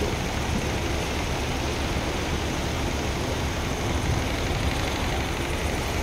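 Heavy diesel engine of construction machinery running steadily at a low idle-like rumble.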